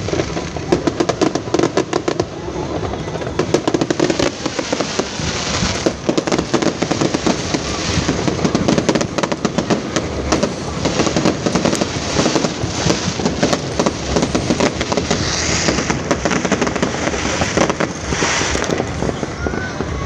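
Fireworks going off in rapid, continuous bangs and crackles, with denser flurries of cracks about six seconds in and again near the end, over the voices of a crowd.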